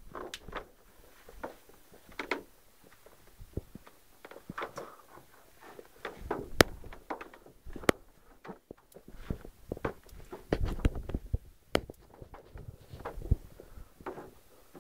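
Footsteps and rustling handling noise with scattered soft knocks and clicks, one sharp click about six and a half seconds in and a few low thumps near eleven seconds.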